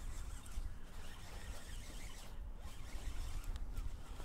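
Wind buffeting the microphone: an uneven low rumble with a light hiss over it.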